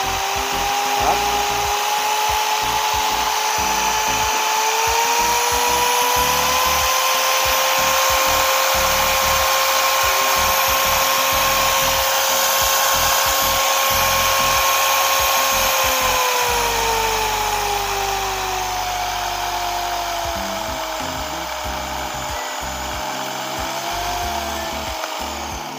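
H&L 8050 5-inch dual-action polisher running free with only its backing plate fitted, its electric motor giving a steady whine. The whine rises in pitch about five seconds in, holds level, then falls from about sixteen seconds in as the machine slows. It dies down at the very end.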